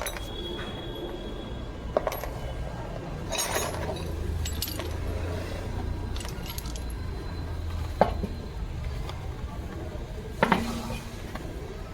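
Metal clinks and a few sharp knocks from tools and parts being handled while a car wheel is refitted and its nuts put on, over a low steady hum.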